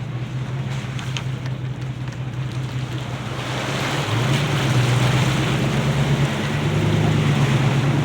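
Vehicle engine drone with road and wind noise, the kind heard from a moving vehicle. It grows louder about halfway through.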